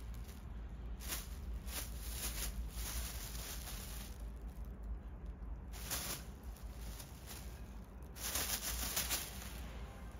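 Thin black plastic bag crinkling and rustling as kittens crawl inside it and pounce on it, in several bursts, the loudest near the end.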